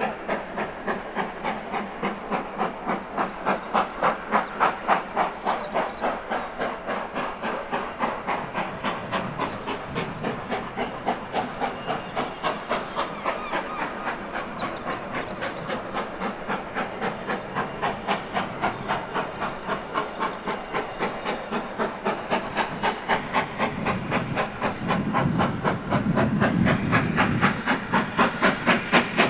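Great Western Railway steam locomotive working under steam, its exhaust beating sharply in a fast, even rhythm that grows louder as it approaches. Near the end a low rumble of the train joins in.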